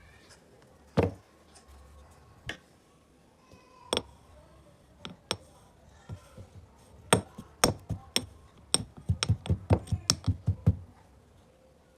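A series of sharp taps or knocks of hard objects: a few scattered strikes, then a quicker run of about a dozen in the second half.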